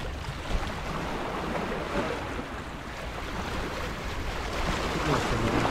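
Sea waves washing on shore rocks, with wind rumbling on the microphone.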